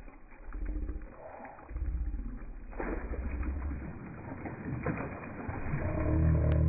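Slowed-down, deep-pitched water splashing as a large fish lunges out of the water at bait held just above the surface. The splash starts suddenly about three seconds in and sloshes unevenly, and a low drone swells near the end.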